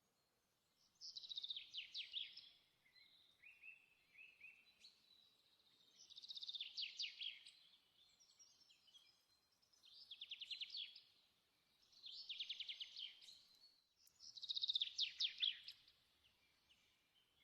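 A songbird singing short phrases of rapid chirping notes that sweep downward, repeated about every two to four seconds with quiet gaps between.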